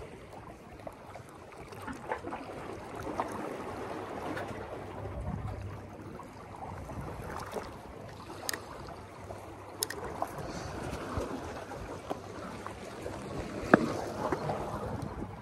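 Small waves washing and sloshing among shoreline lava rocks, a steady splashy hiss. Scattered small clicks from the fishing tackle and handling, with one sharp knock near the end.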